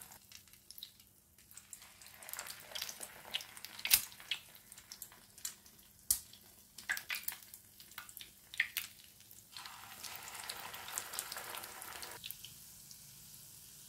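Egg-coated chicken shami kababs shallow-frying in hot oil in a nonstick frying pan: scattered crackling and popping. There is one sharp click about four seconds in, and a steadier sizzle about ten seconds in.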